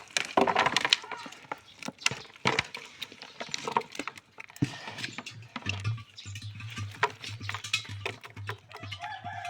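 Irregular sharp clicks and knocks, with a low hum pulsing on and off in the second half.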